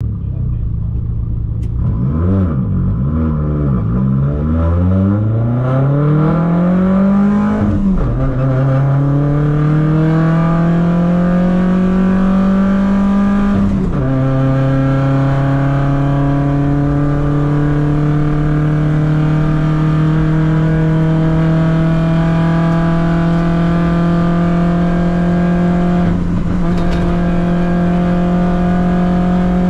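Race-prepared Audi quattro's engine heard from inside the cabin, accelerating hard off the start line: the revs bounce up and down at the launch, then climb in pitch with quick upshifts about 8 and 14 seconds in, followed by a long steady pull in a higher gear with a brief lift near the end.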